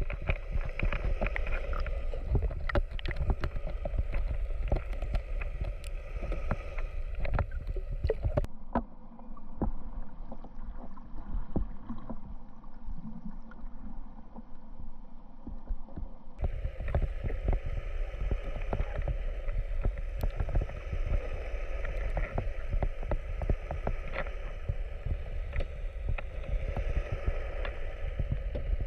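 Water sloshing and gurgling around a camera held under the surface, with many small crackles and a low rumble. For several seconds in the middle the sound turns duller and muffled, then brightens again.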